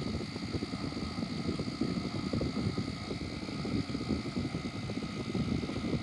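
General Electric AEM08FLM1 window air conditioner running: a steady whoosh of air with a rough low hum, and a few thin, steady high tones over it.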